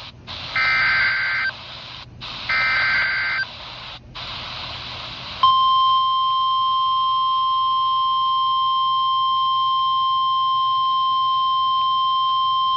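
NOAA Weather Radio emergency alert coming through a weather radio's speaker over a hissy, distant signal. Two screechy bursts of SAME digital header data, about a second each, are followed about five and a half seconds in by the steady 1050 Hz warning alarm tone, which announces a severe thunderstorm warning.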